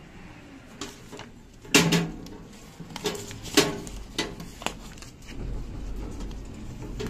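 Paper forms being pushed through the slot of a wall-mounted document drop box: paper rustling with a series of sharp knocks and clicks from the box and its flap, the loudest about two seconds in, then a low rumbling handling noise.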